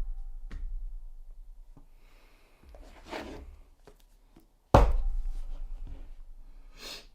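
Heavy thumps of a package being set down on a desk, about five seconds apart, each ringing out over a couple of seconds. Brief rustling of cardboard or handling comes between them and again near the end.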